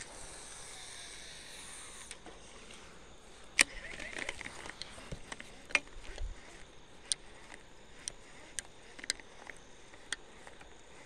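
Fishing lure and tackle being handled close to the microphone: a string of sharp clicks, the loudest about three and a half seconds in, with rustling between them and a soft hiss in the first two seconds.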